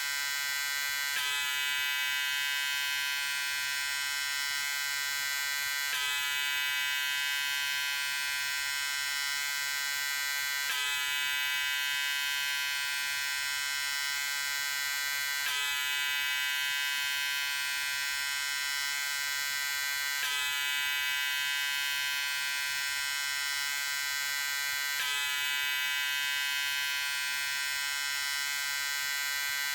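Electric shaver buzzing steadily, a constant high buzz with many overtones and no change in speed. The same stretch repeats about every five seconds, with a slight shift in the buzz at each repeat.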